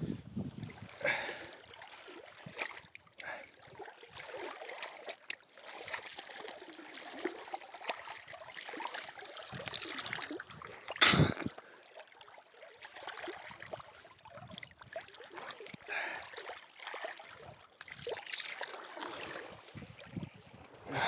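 Bare feet squelching and splashing through wet ground and shallow water, an irregular run of small watery sounds and clicks. There is one loud thump about 11 seconds in.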